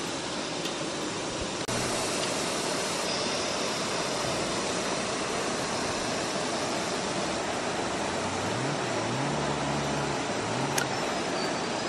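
Shallow, rocky river running with a steady rush of water; a single sharp click near the end.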